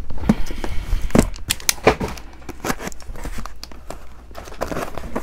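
Small cardboard boxes and packing material rustling and crinkling as they are handled, with irregular sharp crackles and some tearing.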